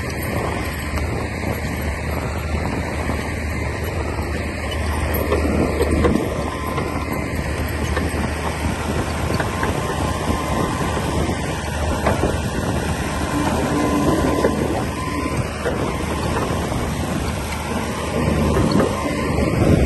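Komatsu D60P bulldozer's diesel engine running steadily, swelling in level about six seconds in and again near the end.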